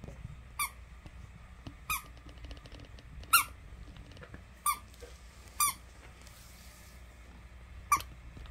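Pink pig squeaky toy squeaking six times at irregular intervals, each a short, sharp, high squeak with a slight drop in pitch at the end.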